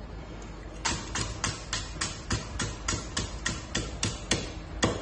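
A Chinese cleaver chopping green chilies into rings on a thick wooden chopping block. The blade knocks on the wood in a steady rhythm of about four strokes a second, starting about a second in.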